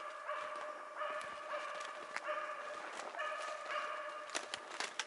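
Hunting laika barking repeatedly at a steady rate, baying a moose it has found. A few sharp cracks near the end, as of twigs snapping underfoot.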